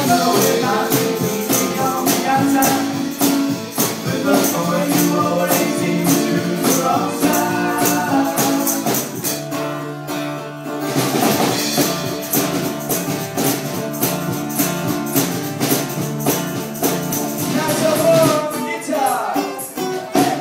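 Live band music: pitched instruments over a steady, evenly repeating percussion beat, thinning out briefly about halfway through.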